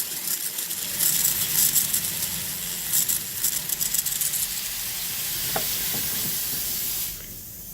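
A motorized abrasive tool grinding and sanding the surface of cast metal earrings, a steady rasping hiss over a faint motor hum that cuts off about seven seconds in.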